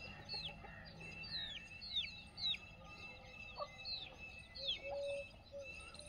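Chicks peeping, a steady run of high falling cheeps about twice a second, with a hen's few low clucks in between.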